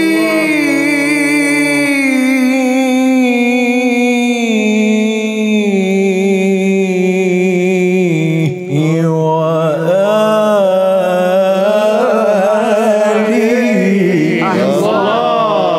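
A man's voice singing unaccompanied into a microphone in the melismatic style of Arabic devotional chant. One long held note sinks slowly in pitch, there is a quick breath a little past halfway, and then comes a run of quavering, ornamented turns.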